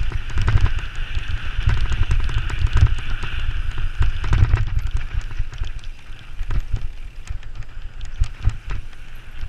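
Bicycle riding downhill over bumpy grass: dense rattling and clicking from the bike and tyres over the rough ground, over a constant low rumble.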